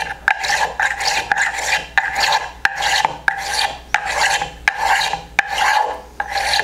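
Small thumb hand plane cutting a chamfer along the square edge of a thin wooden handle, in about ten quick repeated strokes, each starting with a sharp tick.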